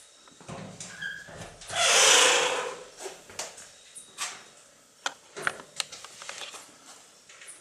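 A loud hissing rush lasting about a second, about two seconds in, then footsteps and small sharp clicks as people walk through a doorway into a room.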